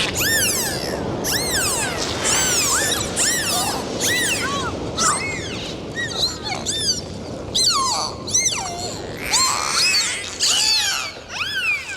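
Dolphins whistling: a quick, overlapping series of whistles that each rise and then fall in pitch, over a steady rushing noise.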